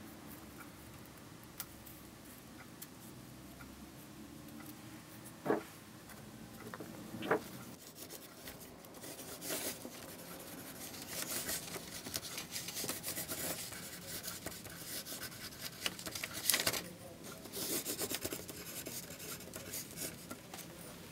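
Handwriting on paper: the writing tip scratching across the sheet in short, uneven strokes, starting about a third of the way in. Before that, faint handling with two short knocks.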